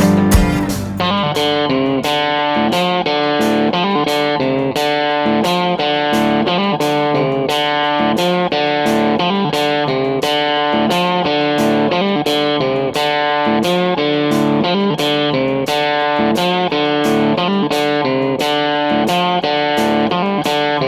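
Background music: an electric guitar track with a steady beat.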